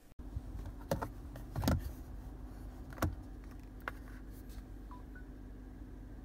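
A smartphone knocking and sliding as it is set down onto a car's wireless charging pad in the centre console, about four sharp knocks with the loudest near two seconds in. Under them runs a steady low cabin hum, and a faint short two-note beep sounds about five seconds in.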